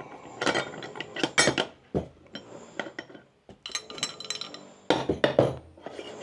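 Metal parts of a pellet extruder assembly, a steel barrel, stepper motor and aluminium mounting plate, clinking and knocking as they are pulled apart and handled, in a string of short knocks with a brief pause about three and a half seconds in.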